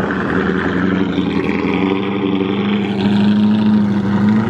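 V8 sports car exhaust running at low speed as the car pulls through a parking lot: a steady drone that rises a little in pitch and gets louder about three seconds in.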